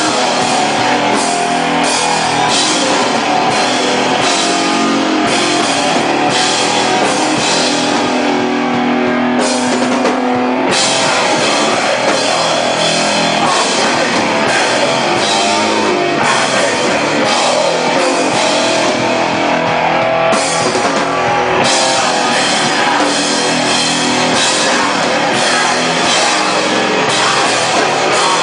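Hardcore band playing live: loud distorted electric guitar over a drum kit with steady cymbal hits. The cymbals drop out briefly twice.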